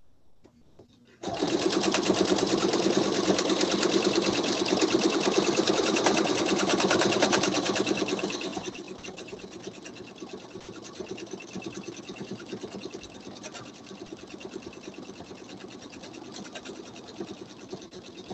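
Pfaff sewing machine free-motion quilting through a quilt sandwich: the needle starts up suddenly about a second in with a fast, even stitching clatter, then carries on more quietly from about eight seconds in.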